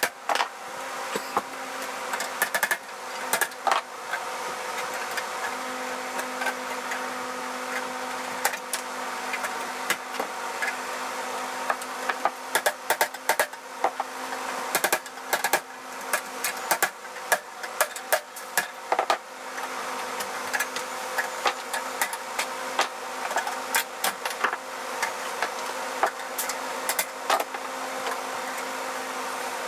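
Irregular sharp taps and knocks of hand tools on a steel breaker panel, as knockouts are worked out of it, over a steady buzzing hum.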